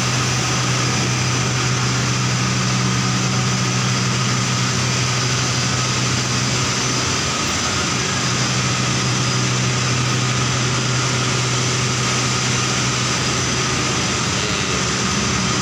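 A steady low machine hum over a constant rush of noise, dipping briefly about seven seconds in.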